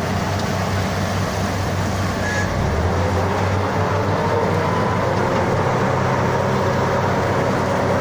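Truck-mounted borewell drilling rig running steadily: a continuous engine hum under the rush of water and air blasting up out of the borehole, the sign that the bore has struck water.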